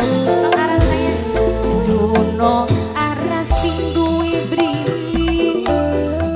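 Dangdut band music played with no singing: a melody line over sustained bass notes and a regular percussion beat.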